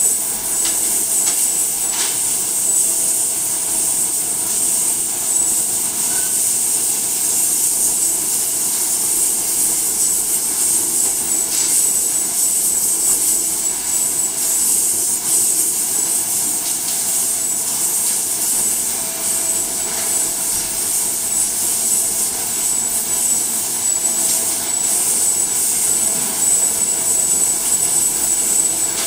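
Steady hiss and hum of crab-processing machinery on a factory line, with the hiss strongest and high-pitched, and a few light clicks.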